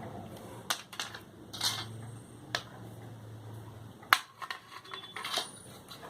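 Hard plastic parts of a phone stand being handled and fitted together: a series of separate sharp clicks and knocks, about six in all.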